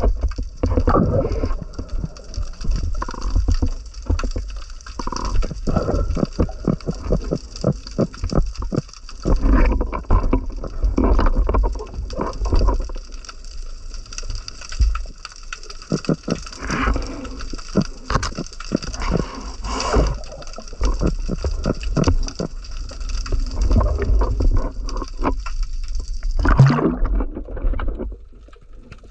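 Water sloshing and gurgling around an underwater action camera, with many irregular clicks and knocks from the camera housing and gear over a low rumble. A steady hiss cuts off suddenly near the end.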